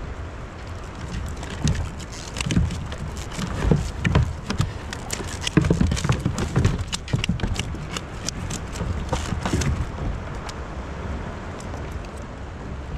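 Irregular knocks, taps and clatter from handling a hoop net's catch of California spiny lobsters, busiest in the middle, over a steady low rumble.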